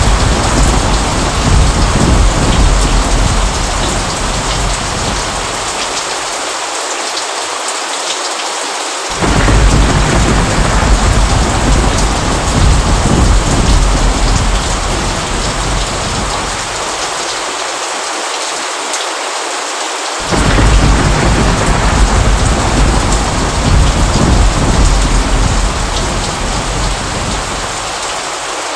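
Steady rain with rolling thunder. A deep thunder rumble is fading away at the start, and new rumbles break in suddenly about nine seconds in and again about twenty seconds in, each dying away over several seconds under the constant rain.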